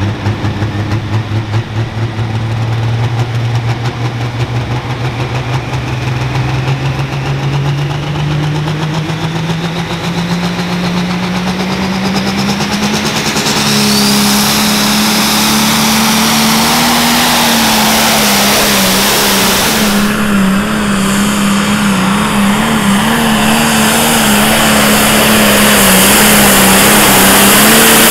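Turbocharged diesel engine of a Limited Pro Stock pulling tractor at full throttle under load: its pitch climbs steadily for about half the run, then holds high and wavers up and down. The pitch starts to drop right at the end.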